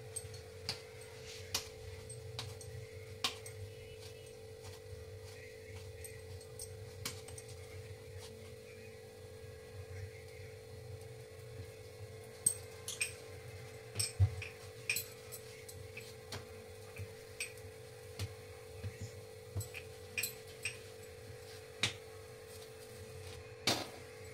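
Rolling pin rolling out a ball of paratha dough, with scattered light clicks and knocks of the pin against the rolling board, over a steady low hum.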